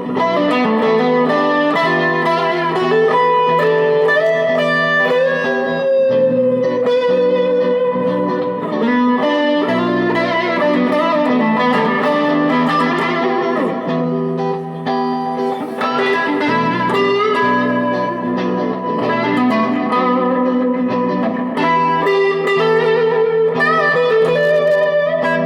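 Electric guitar played through a 1977 Fender Bassman 70 tube amplifier, an improvised run of sustained notes and chords, with a long note wavering in pitch about six seconds in.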